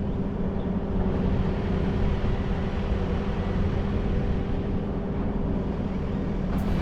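A diesel engine running steadily nearby, a constant low hum with no change in speed. Music comes in right at the end.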